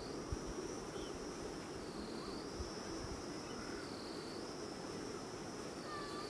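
Insects droning in a steady high buzz that dips briefly about every two seconds.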